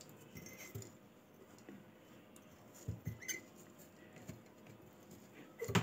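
Salt-packed lemons pressed by hand into a glass jar: faint scattered squeaks and light taps of fruit against the glass, with a louder knock near the end.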